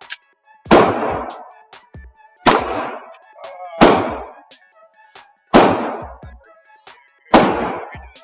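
A pistol fired five times at a slow, steady pace, about one shot every one and a half to two seconds, each bang trailing off over about half a second.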